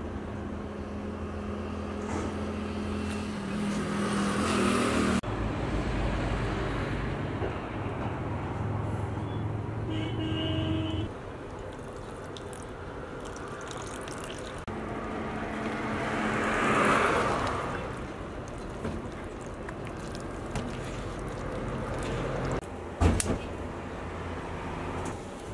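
Roadside background noise with traffic, its character changing abruptly several times. A vehicle swells past and fades about two-thirds of the way in, and there is a sharp knock near the end.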